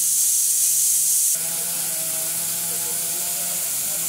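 A loud steady hiss, like air rushing out. It drops a little and changes character about a second and a half in, with a faint steady hum beneath it, then cuts off suddenly at the end.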